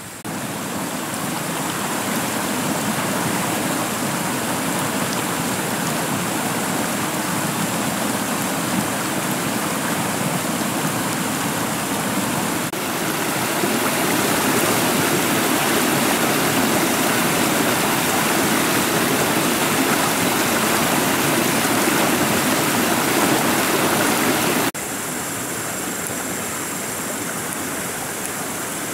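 Shallow rocky stream rushing over stones, a steady wash of water noise. It changes abruptly about 13 s in, getting louder, and drops back about 25 s in.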